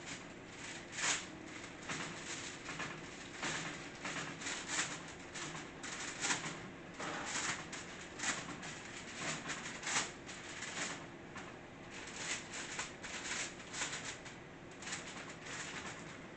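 Oily red velvet cookie dough being mashed and worked by hand: irregular squishing and soft slapping strokes, several a second at times.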